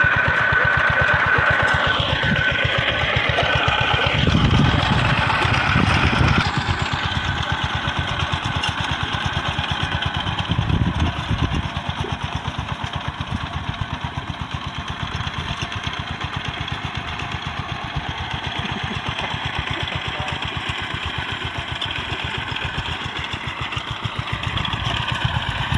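Two-wheel walking tractor's single-cylinder diesel engine chugging steadily as it pulls a plough through a flooded rice paddy. It is louder and rougher for the first six seconds or so, then settles to an even, slightly quieter beat.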